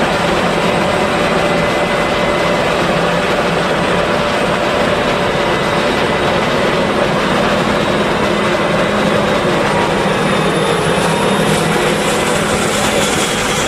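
Claas Jaguar 950 forage harvester chopping corn at work, with a John Deere tractor running alongside: a loud, steady machine drone.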